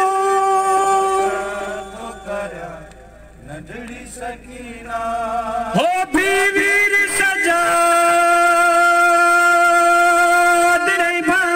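A male voice chanting a noha, an unaccompanied Shia lament, into a microphone in long held, wavering notes. It falls softer for a few seconds in the middle, then comes back loud about halfway through on long sustained notes.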